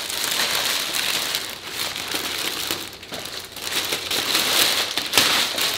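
Clear plastic packaging bag crinkling as it is worked off a new golf carry bag, a dense run of crackles that eases briefly about three seconds in.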